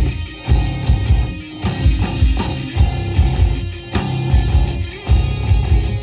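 Live rock band playing loud, with electric guitars, bass and drums over a heavy low end, punctuated by sharp accented hits every second or so.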